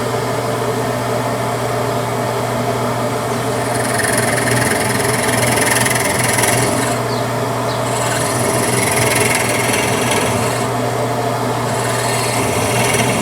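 Drill press running with a steady motor hum, its bit cutting into the block in three spells of a couple of seconds each, about four, eight and twelve seconds in, as it bores a hole for a .223 cartridge case.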